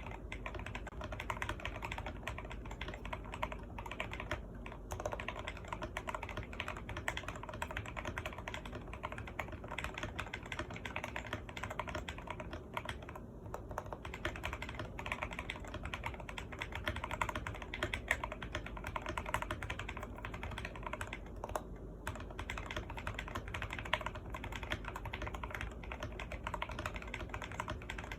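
Continuous fast typing on an Akko MOD001 mechanical keyboard with Jwick Yellow linear switches: a dense clatter of keystrokes, broken by short pauses about four, thirteen and twenty-one seconds in.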